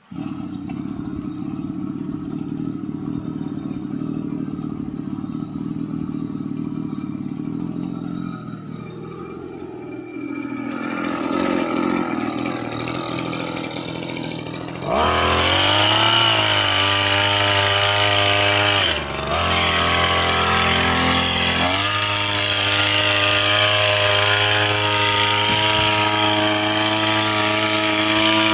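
Small petrol engine of a motorized crop sprayer running at low speed, then throttled up about halfway to a louder, higher-pitched steady run. There is a brief dip a few seconds after the throttle-up, then it holds high speed.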